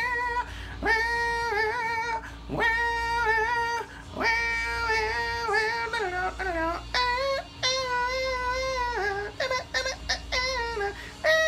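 A man humming a guitar solo without words, in phrases of long held notes that bend and waver in pitch, broken by short breaths.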